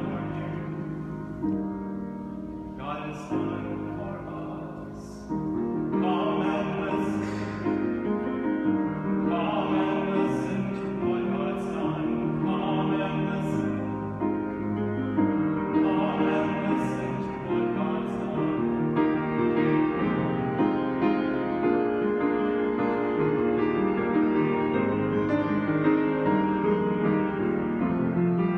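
A man singing a hymn while accompanying himself on a Steinway Model D concert grand piano. About two-thirds of the way through, the voice stops and the piano plays on alone.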